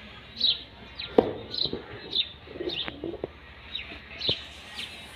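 Pigeons cooing low near the middle, over short high chirps that repeat about twice a second, with a few sharp taps.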